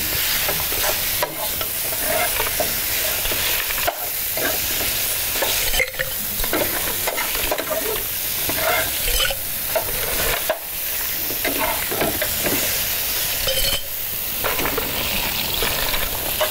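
Barbecue sauce base of fried onion, garlic, tomato, ketchup and pineapple sizzling in a hot pan as it is stirred. There is a steady frying hiss with scattered light scrapes and knocks from the stirring.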